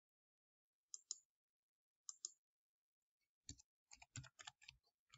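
Faint computer mouse clicks, two quick pairs about a second apart, then a fast run of keyboard key presses about three and a half seconds in as a dimension value is typed in.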